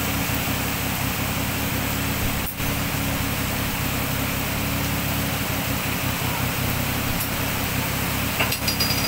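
Heavy rain pouring steadily. A few short clicks near the end.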